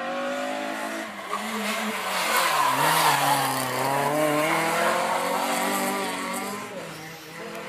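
Renault Clio Cup race car's four-cylinder engine under hard use through a slalom corner: the revs drop to a low point about halfway through, then climb again as it accelerates away, with tyre noise.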